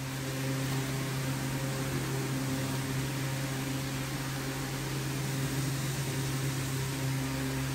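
Steady low electrical hum with an even hiss over it, unchanging throughout; no distinct handling clicks or knocks stand out.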